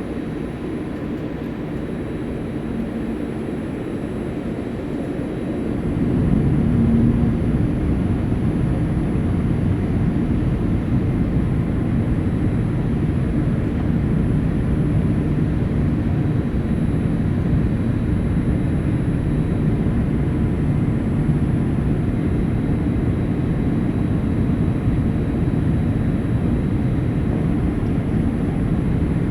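Steady cabin noise of a Boeing 787-8 Dreamliner with GEnx-1B engines: a low rumble of engines and airflow that grows louder about six seconds in, then holds steady, with a faint high whine.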